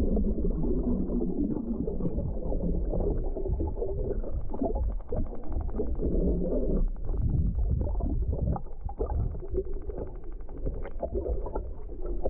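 Muffled underwater sound picked up by a camera in a waterproof housing: a low rumble of moving water with gurgles and small irregular knocks and ticks.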